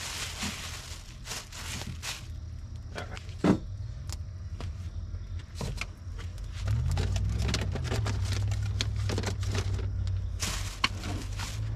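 Plastic bag rustling and small clicks and clatters of gear being handled on a vehicle's tailgate, over the low drone of a nearby vehicle's engine. The drone grows louder about seven seconds in, and its pitch rises and falls briefly.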